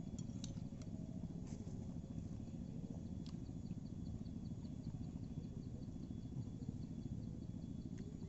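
Outdoor ambience: a steady low rumble of breeze, a few light clicks in the first few seconds, and a rapid high ticking call, about five ticks a second, that starts about three and a half seconds in and runs for several seconds.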